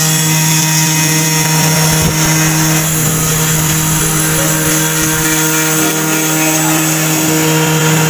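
Mini CNC router spindle running steadily as its bit engraves a fibreboard sheet, a constant whine with tones that shift a few times as the machine moves.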